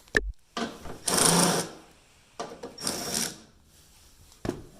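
Ratchet wrench clicking in two runs of about a second each, loosening the 10 mm bolts that hold a car headlight, after a short knock at the start.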